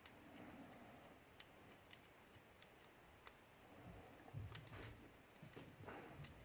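Faint metallic clicking and scraping of an octo rake being worked in the keyway of a Syneco padlock, raking its pin tumblers, with a few soft handling knocks about four to five seconds in.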